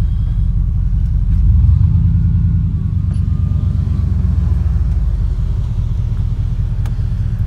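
A motor vehicle's engine and road noise: a steady low rumble that swells briefly about two seconds in.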